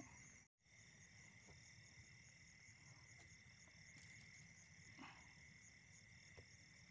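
Faint steady chorus of crickets and other night insects trilling, several high notes at once, one of them pulsing quickly. It cuts out completely for a moment about half a second in.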